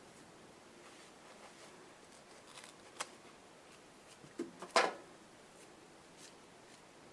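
Faint clicks and snips of fly-tying tools working a clump of deer hair: one click about three seconds in and a louder short cluster just before the five-second mark.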